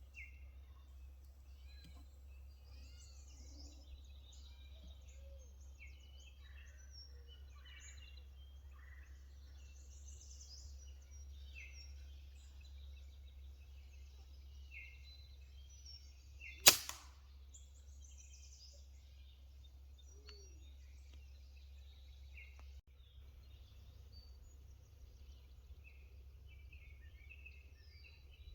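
A single pellet-rifle shot about two-thirds of the way through: one sharp crack with a brief tail. Small birds chirp and sing throughout.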